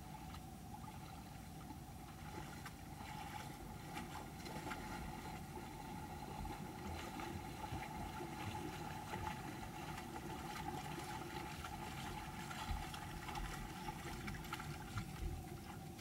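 Shallow creek running over stones, with splashing as black bear cubs wade through the water, busier from a few seconds in and with a couple of louder splashes near the end.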